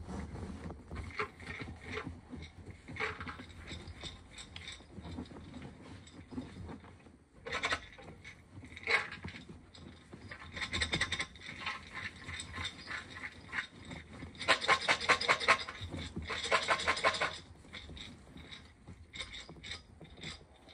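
Popcorn kernels rattling inside a glass jar as it is tilted and shaken by hand, in two spells of rapid rattling, the second and loudest about two-thirds of the way through. Scattered knocks and rustles of handling the jar come between.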